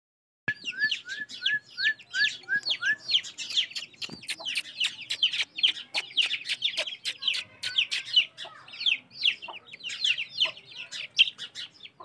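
Rose-ringed (Indian ringneck) parakeet calling in a fast, unbroken run of short shrill screeches, about three a second, starting about half a second in.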